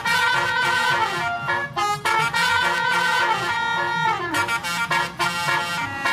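Basuri melody air horn playing a tune: a fast run of reedy horn notes, several sliding down in pitch at the end.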